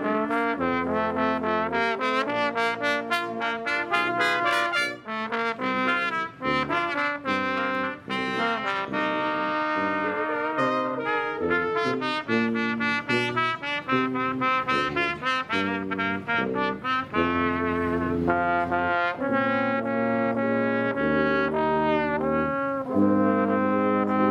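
Brass quintet of two trumpets, French horn, trombone and tuba playing an instrumental tune together, with a moving tuba bass line under the melody.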